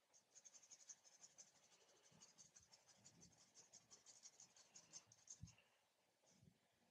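Faint, rapid scratching of a paintbrush's bristles stroking acrylic paint across canvas, several strokes a second, stopping about five and a half seconds in.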